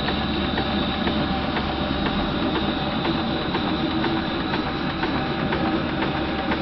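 Antique horizontal steam engine running slowly and steadily on live steam at about 20 psi, a steady hiss with a light, regular ticking from its strokes.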